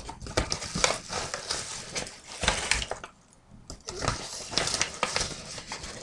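A measuring tablespoon scooping flour, with rustling and scraping in two stretches and a short lull about three seconds in.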